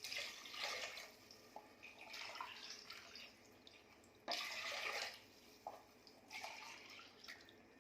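Coconut milk being poured into a cooker pot and splashing, in four short spells.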